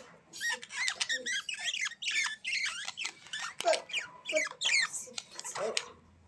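Birds calling in a rapid run of short, high squawks and chirps, many sliding downward in pitch, which stop briefly near the end.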